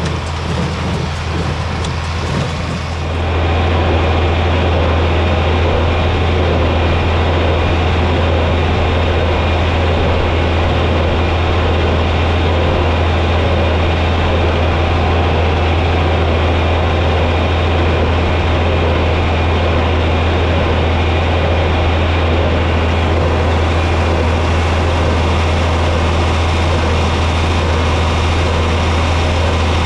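John Deere 4020 tractor's engine running steadily with a deep hum, getting louder about three seconds in and then holding even.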